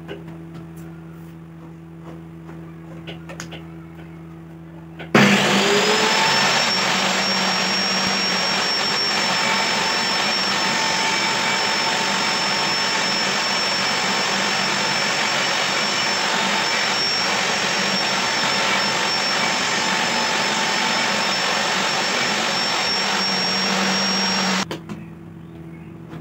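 Table saw ripping a length of wood along its fence: a loud, steady cutting noise with a high whine. It starts abruptly about five seconds in and stops shortly before the end. Before the cut there is only a low hum.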